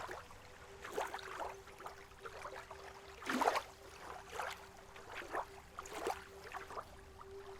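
Lake water lapping in small irregular splashes, every half second to a second, with a faint steady hum-like tone beneath.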